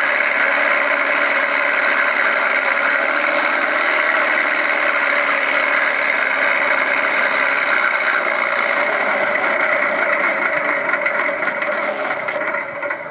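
Engine of a radio-controlled P-51 Mustang model aircraft running steadily in flight, fading slightly near the end.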